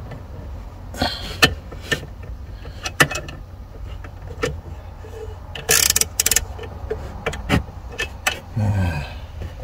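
Irregular sharp clicks and knocks of hard parts and tools being handled during a car's 12V battery replacement, over a steady low rumble.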